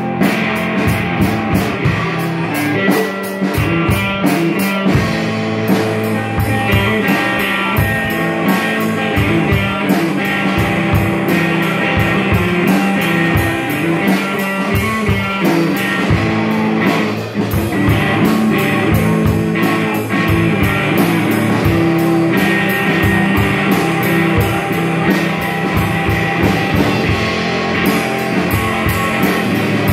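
Instrumental break of a rock song: guitar and drum kit playing a steady beat, with no singing.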